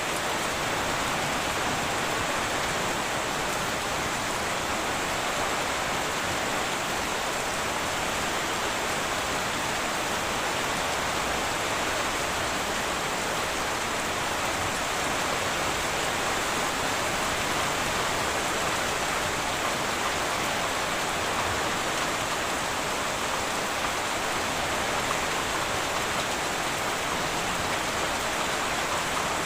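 Heavy rain falling steadily on a tin roof, an even, unbroken hiss of drops.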